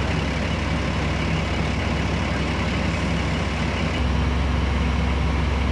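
Large truck engine idling steadily, a low hum with an even background rush, stepping up in level about four seconds in.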